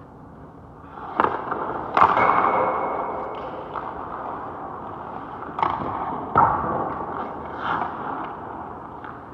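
Sharp cracks of hockey sticks and pucks, about five in all, the loudest two seconds in, each ringing out in a long ice-rink echo, with skate blades scraping the ice in between.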